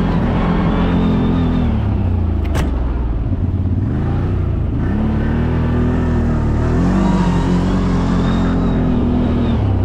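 CFMoto CF 1000 side-by-side's engine pulling up a steep grade in low range, its revs rising and falling several times with the throttle. A sharp knock sounds about two and a half seconds in.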